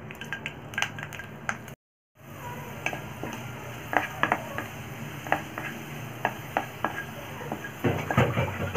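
Garlic cloves sizzling in hot oil in a wok, with a wooden spatula knocking and scraping against the pan as they are stirred. The sound cuts out briefly about two seconds in, and the stirring gets louder near the end.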